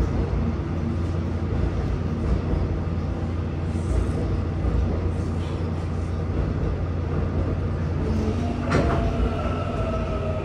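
Seoul Subway Line 4 train with Mitsubishi GTO-VVVF traction, heard from inside the car while running: a steady rumble of wheels on rail, with a sharp clack about nine seconds in. From about eight seconds in, the GTO-VVVF inverter adds a whine of several steady pitches.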